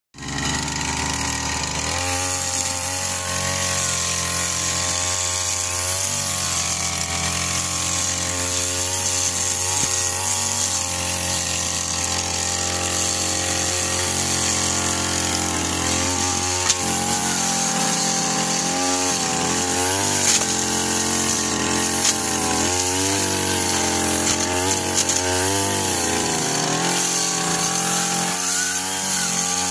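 Backpack brush cutter engine running at high speed. Its pitch keeps dipping and recovering as the cutting head works through grass. A few brief sharp clicks come in the middle.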